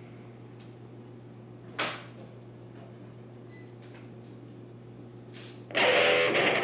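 Sparse experimental noise music from a lap steel guitar and table-top electronics through amplifiers: a steady amplifier hum, one brief sharp noise about two seconds in, and a loud rush of harsh noise with a buzzing tone starting near the end.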